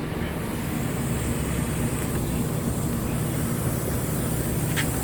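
Petrol car engine running with a steady low exhaust burble from the silencer. The burble is the sign of a misfire, which the mechanic traces to an air leak from a cracked charcoal canister.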